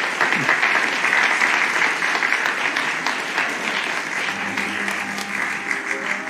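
A roomful of people applauding, many hands clapping together at once, easing off slightly toward the end.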